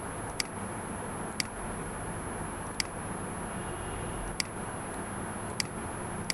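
Computer mouse clicking about six times, single sharp clicks roughly a second apart, over a steady background hiss and low rumble.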